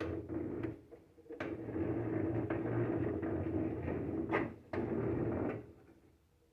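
Blade-adjustment mechanism of a small Craftsman 8-inch table saw being cranked by hand: a steady grinding rattle with a few sharp clicks and a brief break where the grip on the crank shifts. It stops abruptly about a second before the end.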